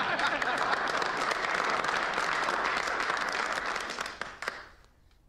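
A group of men applauding, a dense clatter of clapping that dies away about four and a half seconds in.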